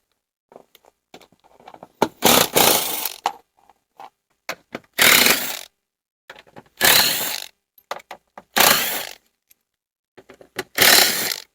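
Cordless 1/4-inch impact driver hammering out T45 Torx body-panel screws in five short runs, with small clicks and clinks of handling between them.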